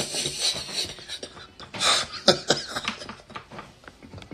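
A man laughing hard in irregular breathy bursts, loudest about two seconds in.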